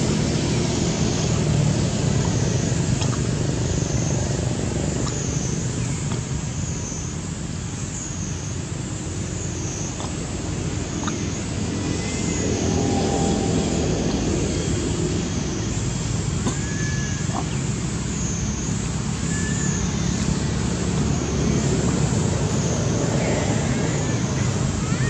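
Steady low outdoor rumble, with a few brief high chirps about halfway through and again a few seconds later.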